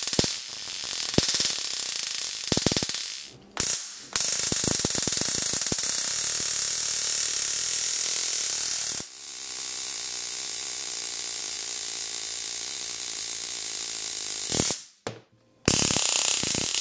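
Handheld stun gun firing with its prongs pressed against an iPhone X's metal frame: a loud, rapid crackle of electric arcing, going in long bursts that break off briefly about three and a half seconds in and again near the end.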